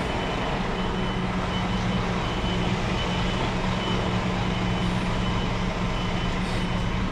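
Scania R-series truck's diesel engine running steadily while its reversing alarm beeps over and over at an even pace as the truck backs up.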